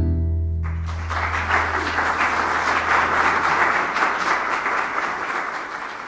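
The last chord of a vals, strummed on a Venezuelan cuatro over a low double bass note, rings out, and just under a second in audience applause starts and continues.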